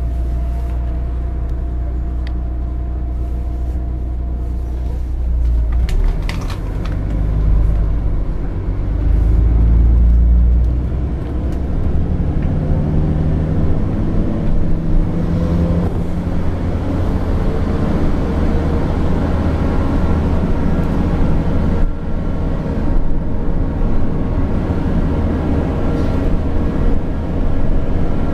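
DAF DB250 double-decker bus's diesel engine idling, then pulling away about six seconds in and accelerating, with the engine note rising, before running on with road rumble heard from inside the bus.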